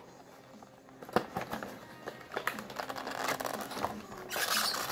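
Cardboard box and packaging being handled as a model locomotive is worked out of a tight-fitting box: scattered light taps and clicks, then a short burst of rustling near the end.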